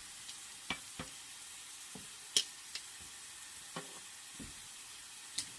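Ground beef and onion sizzling steadily in a skillet, with a few light clicks and taps of utensils, the loudest a little over two seconds in.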